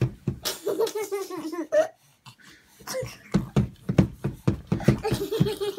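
Laughter in runs of quick, breathy bursts, with a baby's high, wavering squeal about a second in and again near the end.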